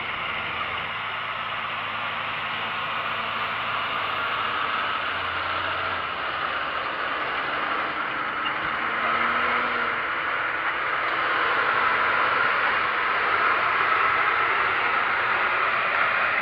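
John Deere 7530 tractor's six-cylinder diesel working in the field with a Gaspardo Aliante seed drill in tow: a steady engine drone with a strong hiss, growing gradually louder as the rig draws near and passes.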